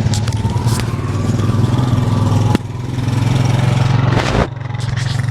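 An engine running steadily at an even speed, with a single sharp knock about four seconds in.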